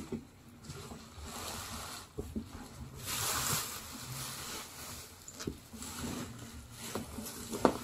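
Thick bubble wrap rustling and crinkling as hands pull a boxed laptop out of it, loudest about three seconds in, with a few light knocks of the box.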